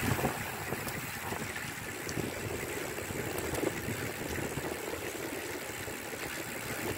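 Road bicycle rolling over a wet road in the rain, a steady watery rushing of tyres on wet tarmac.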